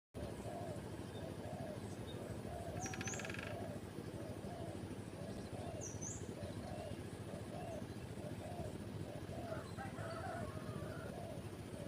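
Wild birds calling: a low, cooing note repeated steadily a little more than once a second, with two short high chirps and a brief chatter over a steady outdoor hiss.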